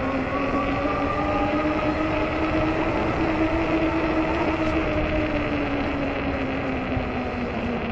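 Ecotric 20-inch 48-volt fat-tire e-bike under way: the hub motor's whine rises slowly in pitch, then falls over the last second or so as the bike slows. Underneath is a steady rush of wind and tire noise.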